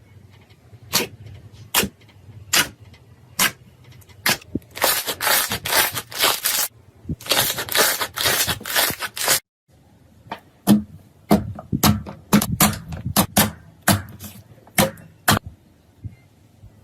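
Hands squeezing and pressing slime: sharp pops and clicks, with two runs of dense crackling about five and eight seconds in. The sound cuts out briefly near ten seconds, then scattered pops and clicks go on.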